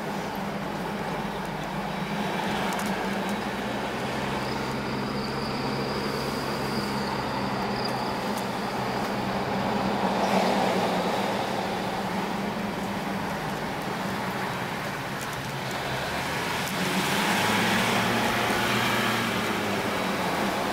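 Jeep Wrangler JL Rubicon engine running under way, heard from inside the cabin with road and wind noise. The engine note is steady and shifts about three-quarters through.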